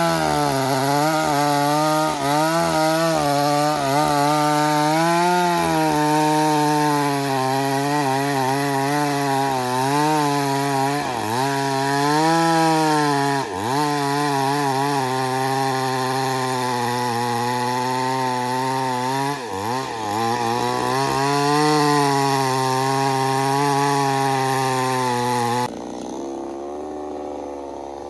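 Two-stroke chainsaw running at high revs while cutting into wood. Its pitch repeatedly sags and recovers as the chain loads up in the cut. Near the end the sound drops abruptly to a quieter, lower hum.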